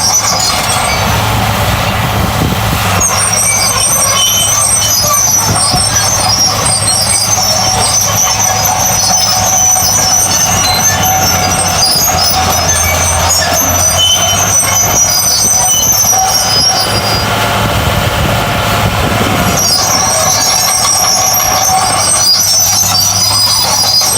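Heavy earthmoving machinery running steadily: a deep diesel engine hum with a high metallic squeal over it that fades out for a while and comes back near the end.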